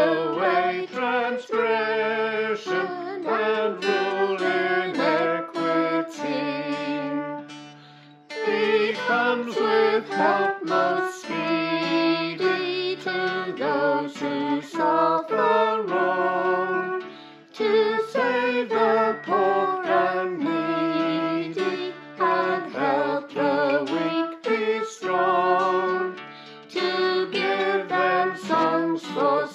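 A hymn sung by several voices, women's voices among them, to guitar accompaniment, in steady phrases with short pauses between lines.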